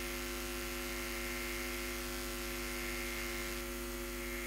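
Steady electrical mains hum and buzz in the microphone and sound system: a stack of several even, unchanging tones, with nothing else over it.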